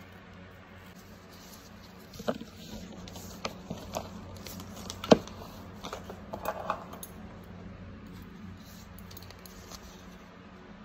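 A roll of white adhesive tape being handled and unrolled on a table: a run of light clicks, taps and rustles between about two and seven seconds in, the loudest a sharp knock about five seconds in.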